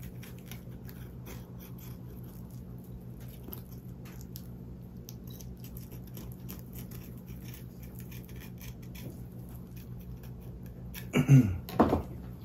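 Fillet knife cutting along a perch's back beside the dorsal fin, a faint, irregular crackle of small ticks as the blade works through skin and fin rays, over a steady low hum. A brief louder sound comes near the end.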